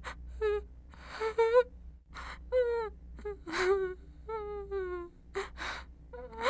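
A voice making a rapid string of short, high-pitched whimpering squeaks, some sliding down or up in pitch, broken by breathy gasps.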